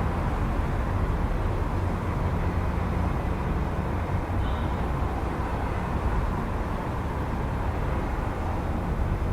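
Steady city traffic rumble, a continuous low drone of passing vehicles with no single one standing out.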